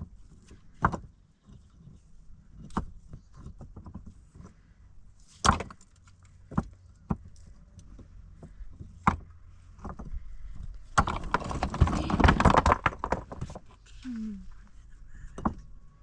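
Rough stones being set by hand onto a dry-stone wall: sharp clacks of stone on stone a few seconds apart, then a couple of seconds of denser scraping and rattling about two-thirds of the way through.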